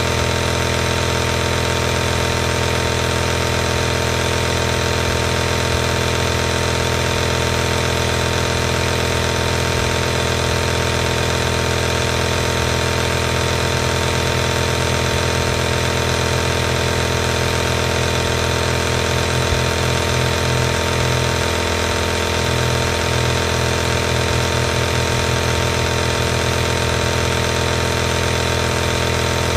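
Compressor nebulizer running steadily: its air compressor makes a constant hum with overtones over an even hiss. The low hum wavers in a slow beat for a stretch in the middle.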